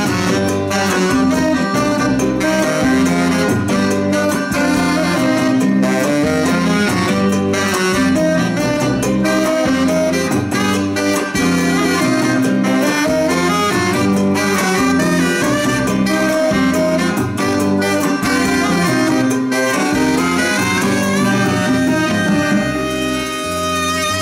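A live band plays an instrumental passage led by two saxophones together, over electric guitar, bass and drums.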